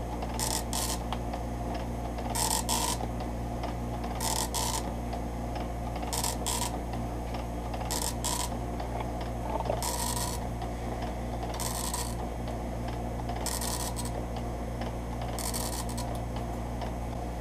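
Epson MX-80 III dot-matrix printer printing a test page: the print head chatters in short bursts, in pairs about every two seconds, as it works line by line. A steady low hum runs underneath.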